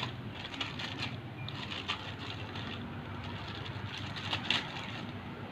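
Clear plastic wrapping crinkling in a few short, faint spurts as a new motorcycle cylinder block is handled in its bag, over a steady low background hum.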